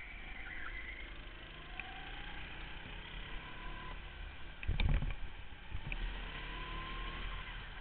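Go-kart engine running under way, heard from an onboard camera as a steady noisy drone with a faint whine rising in pitch twice as the kart accelerates. About five seconds in there is a sudden loud thump.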